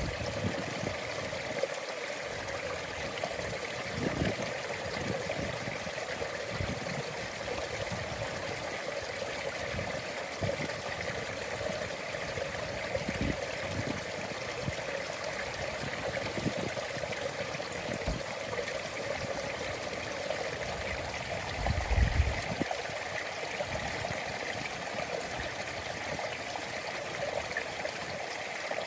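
A stream flowing steadily into the sea. A few brief low thumps break in, the strongest about two-thirds of the way through.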